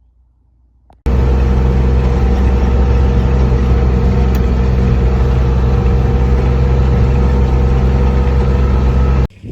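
An engine running steadily at a constant low pitch, loud and close. It cuts in about a second in and cuts off just before the end.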